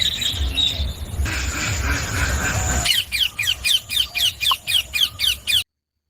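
Indian ringneck parakeets calling: a quick run of short, falling screeches, about four a second, that begins about halfway through over a low rumble and cuts off suddenly.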